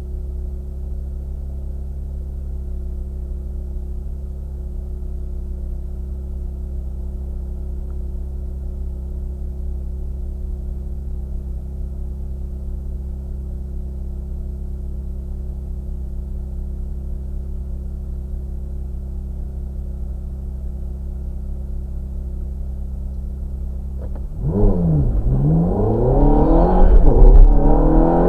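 Ferrari F430 Spider's 4.3-litre V8 idling steadily, heard from the open cockpit. Near the end it bursts into hard acceleration, the pitch climbing and dropping back several times as it pulls through the gears.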